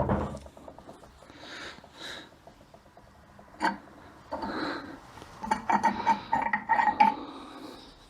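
Metal automatic-transmission overdrive parts clinking and knocking as they are handled on the bench: a thump at the start, a single knock about three and a half seconds in, and a run of quick clinks between about five and seven seconds in.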